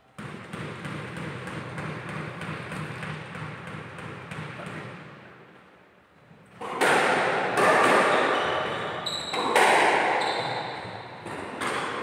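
Squash rally: the serve about six and a half seconds in is followed by a run of sharp, echoing strikes as the ball is hit by racquets and bounces off the court walls, with short high squeaks among them. Before the serve there is only a steady background hum with faint ticks.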